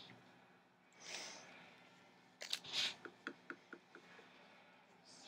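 Hands rustling and crinkling paper craft supplies: a soft rustle about a second in, a louder crinkle a little after two seconds, then several light ticks.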